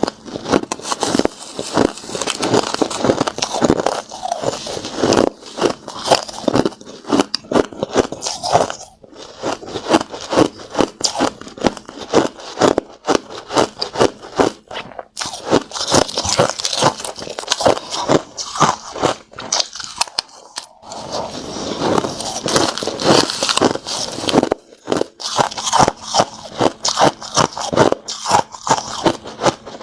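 Hard crushed ice being bitten and chewed: a dense run of sharp crunches, several a second, broken by a few brief pauses.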